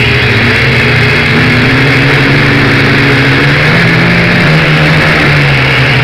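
Quadcopter's electric motors and propellers buzzing loud and close, heard from a camera mounted on the drone itself, with a steady rush of propeller wash. The pitch wavers slightly as the throttle changes during the descent.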